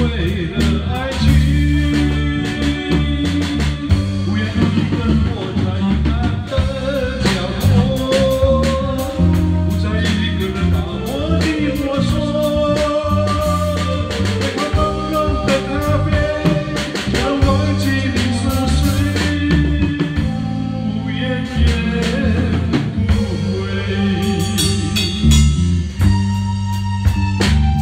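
A band playing a Chinese pop song: drum kit, bass guitar and guitars, with a melody line of sliding, bending notes carried over the top.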